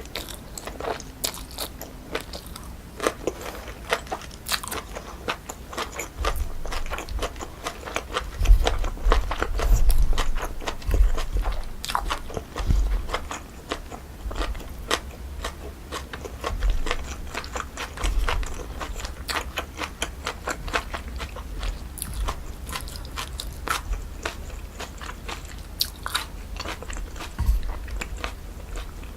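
Close-up chewing and biting of cold pork-feet salad with jellyfish, with rapid crisp crunches throughout. It is loudest about 8 to 13 seconds in, where heavier low thumps come with the bites.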